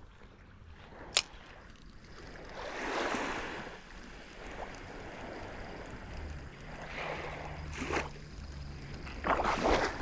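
Small waves washing in surges with some wind noise, and one sharp click about a second in.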